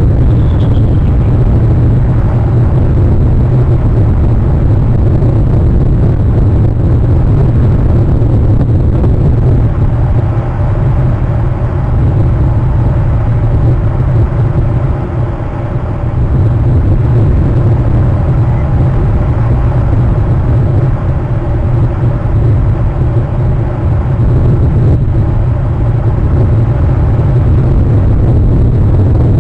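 Loud, steady low rumble of wind buffeting an outdoor microphone, with a faint hum above it through the middle stretch.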